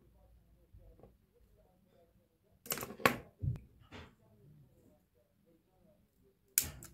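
A few sharp clicks and knocks of hands working with tools and small parts: a cluster about two and a half to four seconds in, and another near the end.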